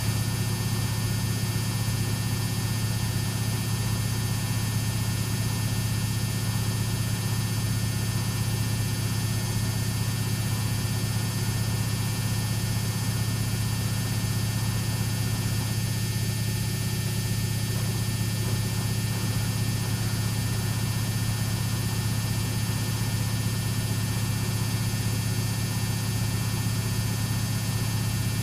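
Samsung WF6700 washing machine spinning at a steady high speed in its final spin, its AC brush motor giving a loud, unchanging hum with a whine on top.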